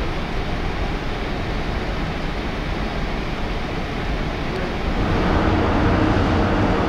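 Steady rumble of a large ferry under way, heard on its open deck with wind blowing across the microphone. About five seconds in it grows louder, with a steady low hum from the ship's engines and funnel.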